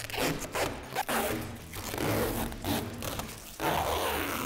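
Protective plastic film being peeled off a polycarbonate basketball backboard and crinkling as it is gathered up in the hands: a run of uneven, noisy rustles.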